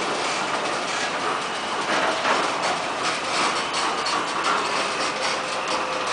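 Loaded CSX rock-train open-top hopper cars rolling slowly past, their steel wheels giving a steady clatter over the rails with frequent irregular clicks.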